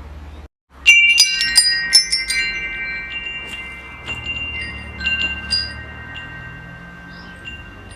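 Wind chimes struck in a flurry, starting suddenly after a brief cut-out about a second in, their clear high tones ringing on and slowly fading. A few more chime strikes follow around four to five and a half seconds, over a steady low hum.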